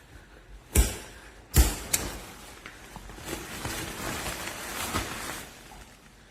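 Two sharp knocks a little under a second apart, then a few seconds of rustling handling noise with light clicks that fades out.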